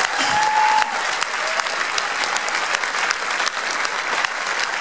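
Large crowd applauding, loudest in the first second.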